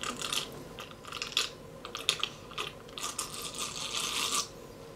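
A person drinking an iced coffee from a plastic cup: short sips and swallows with small clicks, then a longer slurp from about three seconds in that stops shortly before the end.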